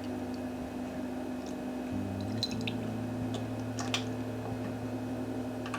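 Liquid smoke being measured into a tablespoon and added to the marinade bowl: a few faint drips and small clicks over a steady low hum.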